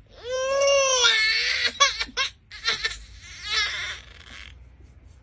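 Infant crying: one long cry of about one and a half seconds, then a few short sobs and another cry that stops about four seconds in.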